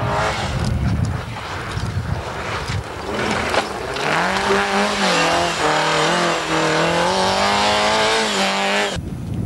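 Rally car engine running hard at high revs over a noisy rush of tyres on snow. The engine note holds high with small rises and dips, then cuts off abruptly near the end.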